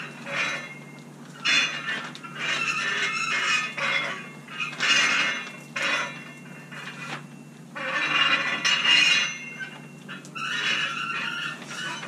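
Squeaking and squealing in about six separate strokes as a long-handled roller is pressed and pushed along a plastic-wrapped pipe liner, working epoxy through the liner to wet it out.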